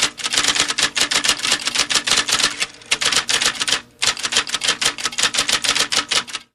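Typewriter keys being struck in rapid succession, about eight to ten clacks a second, with short pauses about three and four seconds in; the typing stops right at the end.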